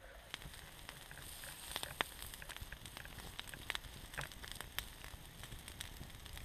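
Small wood campfire crackling, with irregular sharp pops over a faint hiss; the loudest pop comes about two seconds in.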